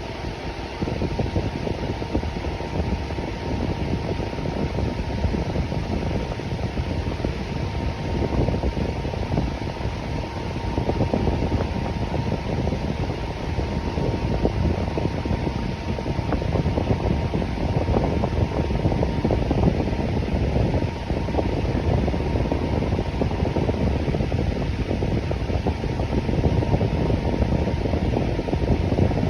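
Electric fan running steadily: an even, low rush of air with a faint steady tone above it.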